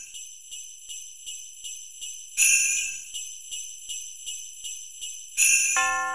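Sleigh bells shaken to a steady beat in Christmas intro music, about three shakes a second with a big accent every three seconds. Near the end, sustained chime-like notes join in.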